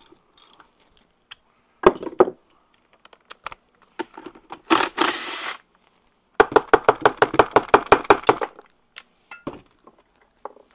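Hand ratchet backing a nut off a motorcycle engine's motor-mount stud. There are a few sharp metal clicks and a short rasp, then about two seconds of even ratchet clicking, about seven clicks a second.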